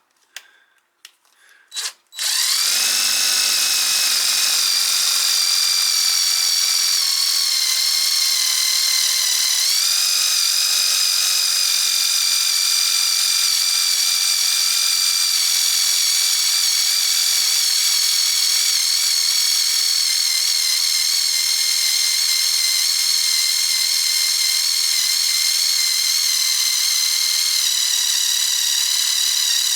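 Drill driver running under load as a drill-and-tap bit bores into 3/16-inch steel strap iron. After a few clicks, a loud high motor whine starts about two seconds in and holds steady, with small shifts in pitch.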